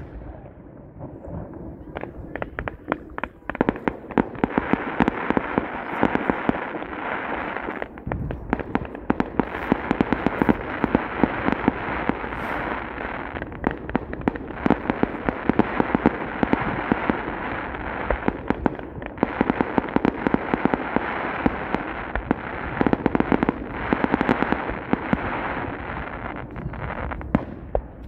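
Fireworks display going off in a dense barrage: a few separate bangs at first, then from a few seconds in a rapid, nearly continuous string of shell bursts, several a second, that keeps up to the end.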